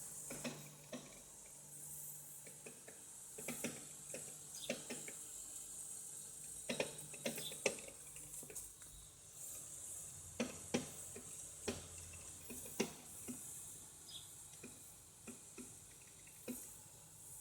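Arçelik No Frost refrigerator making irregular tapping and knocking sounds ('tak tuk'), some sharper and louder than others, over a faint steady hum. The fridge is still cooling well; the owner does not know what fault the noise points to.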